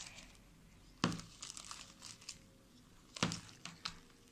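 Fluffy slime being stirred in a bowl as the activator starts to take hold: soft, wet crackling and squishing, with two sharp clicks about a second in and at about three seconds.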